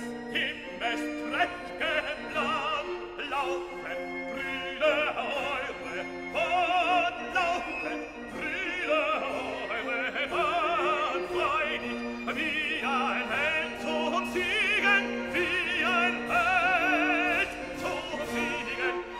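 Opera music: a singing voice with a wide vibrato over an orchestral accompaniment.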